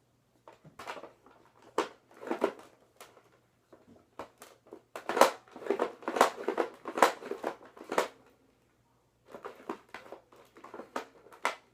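Irregular rustling, scraping and clicking handling noises close to the microphone, in two spells with a short pause between, with a few sharp clicks.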